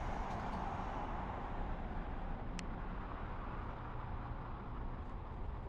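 A train rolling past, its hiss of wheel and rail noise fading as it moves away over a steady low rumble, with one sharp click about two and a half seconds in.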